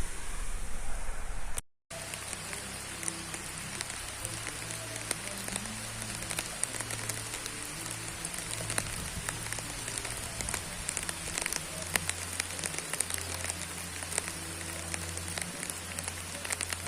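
Heavy rain falling steadily, an even hiss dotted with many sharp drop ticks. It follows a brief stretch of wind rumble that cuts off about two seconds in.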